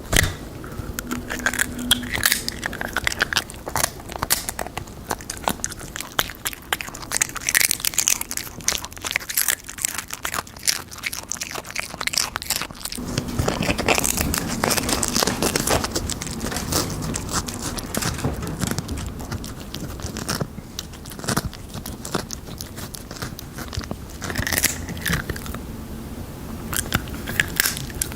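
A pet dog or cat biting and crunching crisp chips close to the microphone: rapid, irregular crackling bites with chewing between them.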